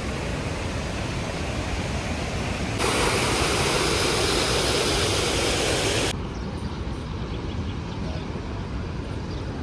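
Steady rushing roar of the Rhine Falls. It cuts abruptly louder and brighter about three seconds in, then drops back to a duller, quieter roar about six seconds in.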